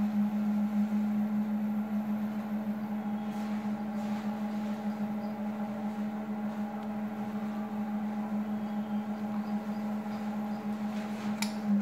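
Small electric pottery wheel's motor humming steadily while wet clay is shaped on the spinning wheel head, with a faint click near the end.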